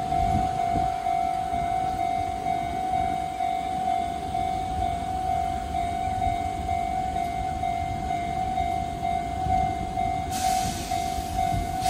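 Japanese railway level-crossing warning bell ringing on and on, a single repeating electronic tone, over a low rumble. A hiss comes in about ten seconds in.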